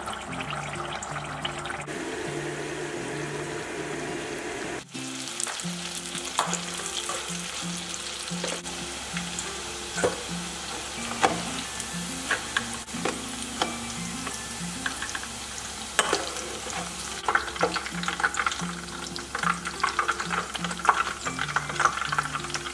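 Tofu strips deep-frying in hot oil, sizzling and crackling. Starting about halfway through, a wire spider strainer clinks and scrapes in the pot as the fried pieces are scooped out, the clicks coming more often toward the end.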